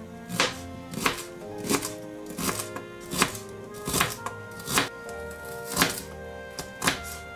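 Knife chopping on a cutting board, a sharp stroke a little more than once a second, over background music with held notes.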